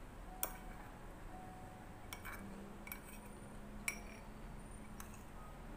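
Metal spoon clinking against a bowl about five times, sharpest near half a second and about four seconds in, with faint chewing between.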